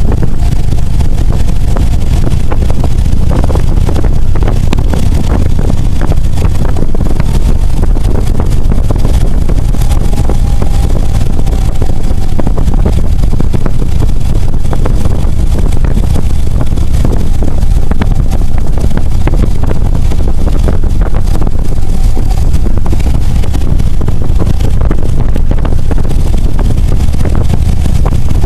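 Loud, steady wind rush on the microphone of a moving motorcycle, with the motorcycle's engine running underneath at an even cruising pace.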